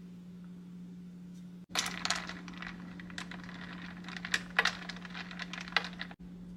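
Matcha utensils being handled: an irregular run of light clicks, taps and scrapes, starting about two seconds in and stopping shortly before the end, over a steady low hum.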